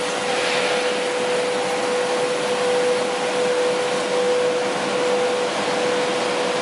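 Twin-screw plastics extruder pelletizing line running: a steady machine noise with a constant whine held on one pitch.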